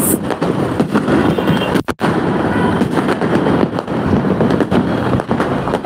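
Fireworks and firecrackers going off all around: a dense, continuous run of bangs and crackle at many distances. The sound drops out for a moment just before two seconds in.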